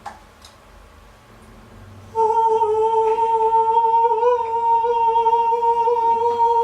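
A person humming one steady, high note, held for over four seconds, made as a live vocal sound effect; a soft click comes just before it.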